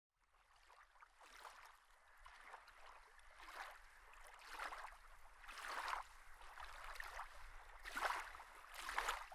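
Small lake waves lapping faintly at the shore, a soft wash about once a second that grows a little stronger after the first few seconds, over a faint low rumble.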